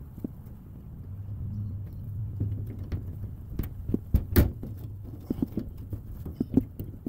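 Hand tools clicking and knocking while working fuel-hose clamps loose under a car, in scattered taps with a few sharper knocks around the middle, over a low rumble.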